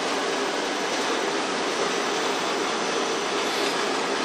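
Wire EDM machine's work tank filling with water on rapid fill: a steady rush of water churning in the tank.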